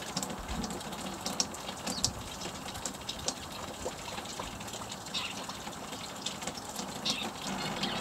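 Small songbirds at a feeder giving short high chirps, a handful of separate calls over several seconds, over a steady rushing background hiss.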